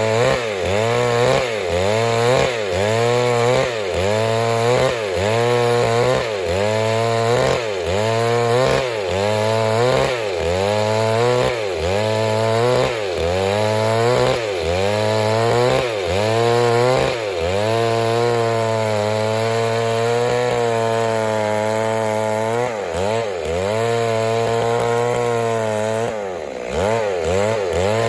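Stihl MS 382 two-stroke chainsaw cutting wood under load. Its engine pitch dips and recovers in a regular rhythm about once a second, then holds steadier for the last third, with one brief dip near the end.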